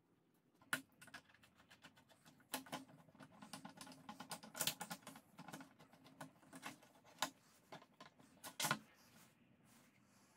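Irregular light clicks, taps and scrapes of metal parts being handled and fastened as an angle grinder carrying a circular saw blade is mounted on a metal plate and its side handle is screwed in, with a few sharper knocks among them. The grinder is not running.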